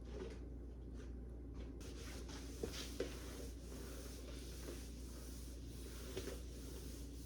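Faint scratchy rubbing or brushing from about two seconds in, over a steady low hum, with a few soft ticks.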